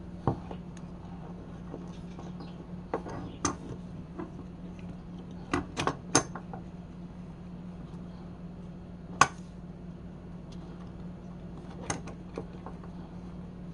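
Small hard objects being handled on a workbench: scattered clicks and knocks, the loudest a little past nine seconds in, over a steady low hum.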